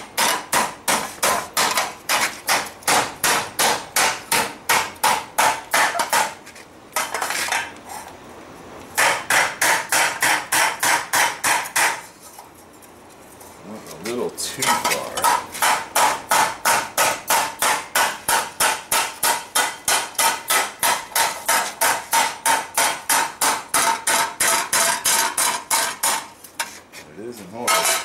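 A hand hammer striking the hot steel of a frying pan being forged, about three blows a second, each with a metallic ring. The blows come in runs broken by short pauses about seven and thirteen seconds in, and they stop shortly before the end.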